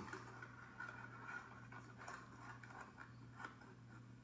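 Near silence: room tone with a steady low hum and faint, scattered light clicks.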